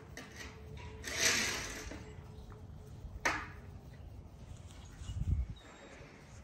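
American bully puppies and a bigger dog play-wrestling on grass: faint scuffling, with a short rush of noise about a second in, a sharp click about three seconds in and a low rumble near five seconds.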